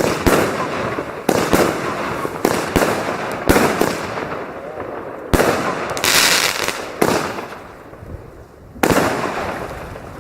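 Fireworks going off: a string of sharp bangs, roughly one a second, each trailing off in a crackling hiss. About six seconds in comes a longer, brighter hiss.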